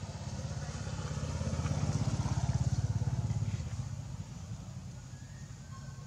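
A motor vehicle's engine passing by, growing louder for about two and a half seconds and then fading away.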